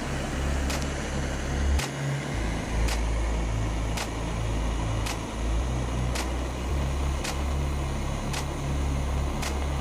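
Butane gas torch burning with a steady rushing hiss from its flame jet, with a deep rumble underneath.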